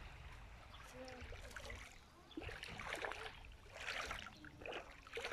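Faint sloshing of shallow sea water at the shoreline: a few soft washes about a second apart in the second half, over a low steady rumble.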